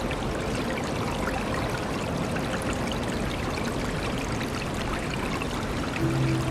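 River water flowing steadily, a constant rush flecked with small splashes.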